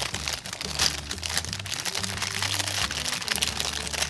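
Thin clear plastic bag crinkling in quick irregular rustles as hands turn and handle it, over background music.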